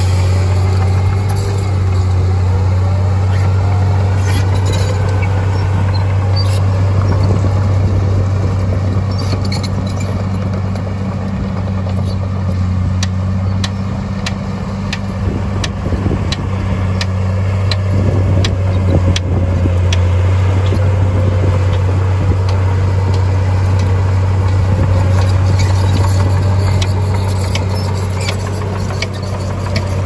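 Heavy earthmoving machinery with a diesel engine running steadily as a loud low drone. A run of sharp clicks and clanks comes through the middle.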